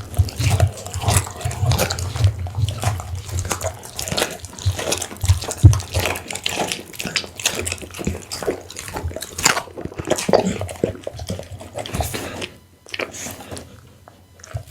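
Pit bull chewing and lapping raw food, a dense run of wet smacks and crunches that thins out and goes quieter about three-quarters of the way through.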